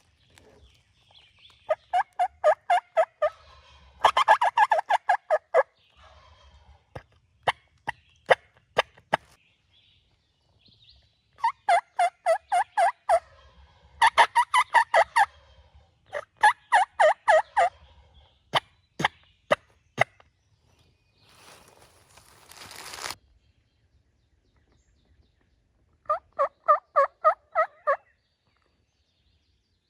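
Wild turkey calling in six loud series of quick, evenly spaced notes, each lasting about a second and a half. Sharp clicks fall between some of the series, and there is a brief hiss near the end.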